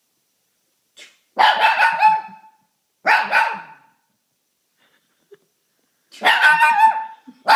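A Shih Tzu giving three drawn-out, howling barks, about a second each, with gaps between them. This is the barking and howling the dog sets off into whenever someone sneezes.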